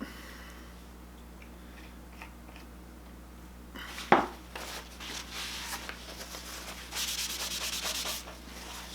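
A squeaky desk creaking: one sharp squeak about four seconds in that slides down in pitch, followed by several seconds of rubbing and scraping that grow loudest near the end.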